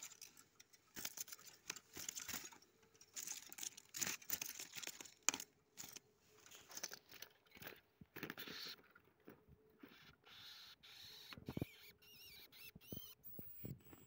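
Great tit caught in a wooden-framed wire trap cage, fluttering and scrabbling against the wire as a hand reaches in to take it: a run of quick, irregular rustling and scraping noises, with a few short high squeaks near the end.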